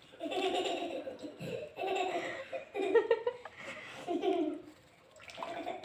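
Laughter-like vocal sounds in several short bouts with brief gaps between them, pausing briefly about five seconds in.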